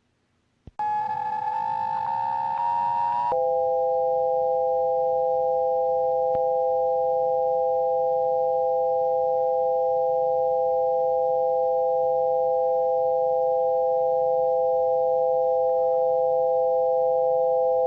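Synthesized sine tones: after a click, a dense cluster of tones plays for about two and a half seconds, then three steady pure tones sound together as a held chord. The tones are pitches derived from the square roots of 2, 3 and 5, wavelengths converted to frequencies.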